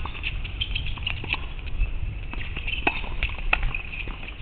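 Tennis rally on a hard court: sharp pops of racket strikes and ball bounces, with footsteps, over a steady low rumble.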